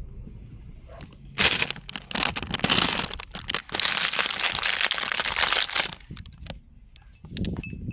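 Plastic candy wrapper crinkling and crackling as it is handled and torn open, loud and continuous for about four and a half seconds starting a second and a half in, then a few quieter crinkles.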